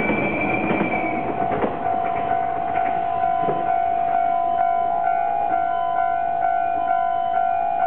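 Train noise from a JR 485-series express passing over a level crossing, fading out about a second and a half in. A level-crossing warning bell rings on in an even repeating rhythm of about two strokes a second.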